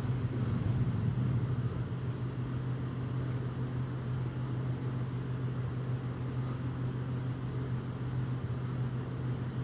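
Steady low hum of an idling vehicle engine, unchanging throughout.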